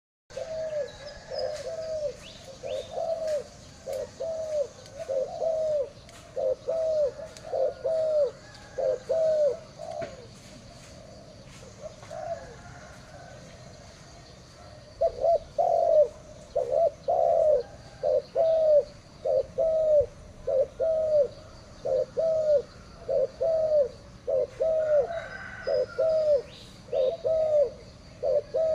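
Spotted dove cooing: a long series of short, evenly paced coos that stop for a few seconds in the middle and then start again. Faint high chirps sound behind them.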